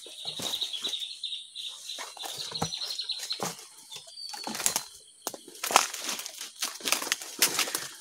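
Footsteps pushing through dense, dry bamboo litter and brush: irregular rustling, crackling and snapping of dry leaves and stems, louder and denser in the second half. A high, thin, steady tone sounds in the background for about the first three seconds.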